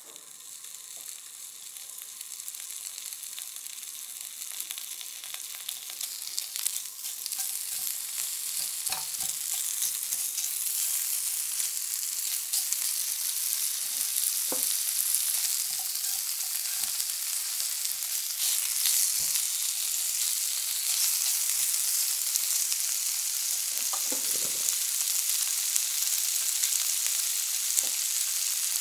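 Guanciale frying in a pan: a crackling sizzle that builds over the first several seconds and then holds steady, with a few light knocks of a utensil stirring it.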